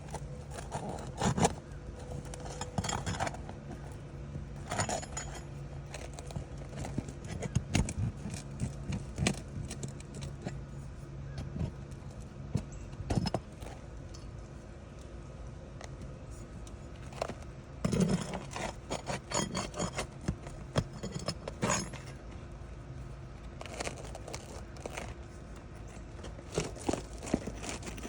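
Nails being pried out of old asphalt roof shingles with a metal tool: irregular metallic clicks, taps and scrapes, with a steady low hum underneath through the first half.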